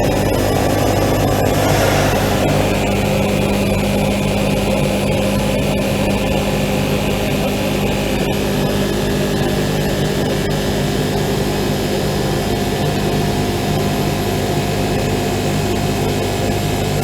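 400 W CNC oscillating knife cutting machine running as it cuts a 28 mm hard rubber plate: a steady mechanical drone with a low hum and a higher whine. The whine shifts in pitch about eight seconds in, and there are a few faint clicks.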